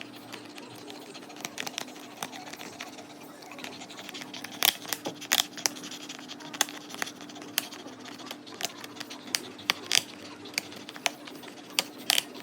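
A Siberian husky chewing on something hard: irregular sharp cracks and clicks of teeth on a hard chew, coming faster and louder from about four seconds in.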